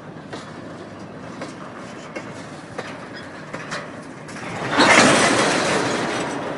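Freight train of covered hoppers and tank cars rolling past close by, wheels rumbling with scattered sharp clicks over the rail joints. About five seconds in, a loud rushing hiss swells suddenly and slowly fades.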